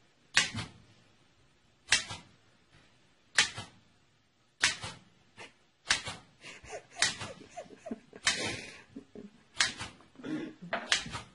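Manual typewriter keys striking, single sharp clacks about every one and a half seconds, then quicker, irregular clacks after about six seconds, with a brief rushing noise about eight seconds in.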